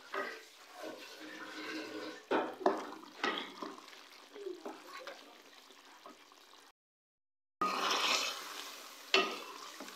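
Wooden spatula stirring and scraping chicken curry around a metal pot, with knocks against the pot and the sauce bubbling and sizzling as it is cooked down over a high flame to dry off the water. The sound drops out briefly about seven seconds in.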